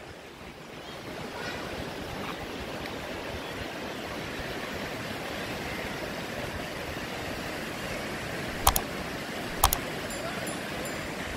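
Surf breaking on a sandy beach: a steady wash of waves. Near the end there are two sharp clicks about a second apart.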